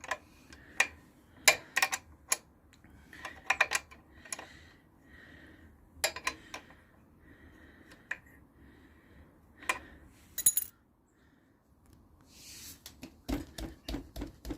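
Hand tools clinking and clicking on metal as the motorcycle's rear chain adjuster is worked to slacken a chain that was too tight: irregular sharp metallic clicks, some in quick clusters, with a pause about halfway through.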